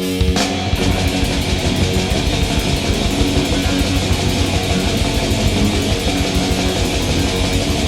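Black metal band recording: distorted electric guitars and bass over fast, even drumming. The band comes in all at once just after a held chord rings out at the start.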